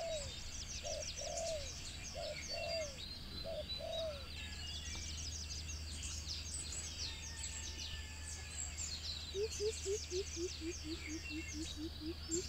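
Rural birdsong ambience: many small birds chirping steadily, with dove-like cooing in pairs for the first few seconds and a quick run of short, low repeated calls, about three a second, near the end. A steady low hum lies underneath.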